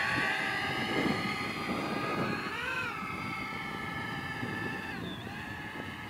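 Parrot Bebop 2 Power quadcopter's four electric motors and propellers whining in flight. The pitch swoops up and back down about halfway through and dips again near the end, and the whine grows fainter as the drone flies away.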